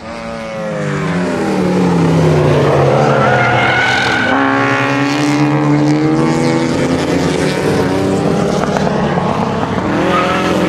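Race car engines revving hard on the circuit. The pitch falls at first, then climbs under acceleration, drops suddenly about four seconds in as a gear is changed, and climbs again.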